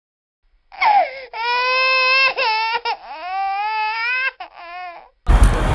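Baby crying: several long, loud wails with short catches of breath between them, starting about a second in. A rush of street noise cuts in near the end.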